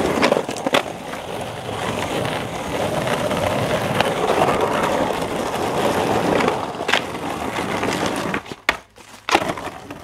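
Skateboard wheels rolling over rough, gritty pavement, a steady grinding rumble, broken by a few sharp cracks of the board hitting the ground. Near the end the rolling drops away, leaving a few clicks.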